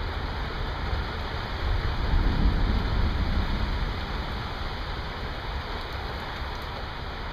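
Steady hiss of heavy rain falling during a severe thunderstorm, with a low rumble that swells and fades about two seconds in.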